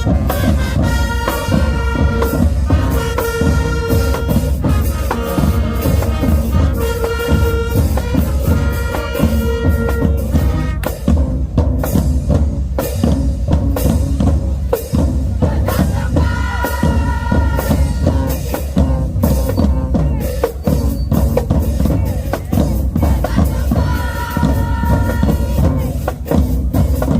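A school band playing with brass and drums: phrases of held brass chords alternate with stretches where the drums carry on alone with bass drum and snare.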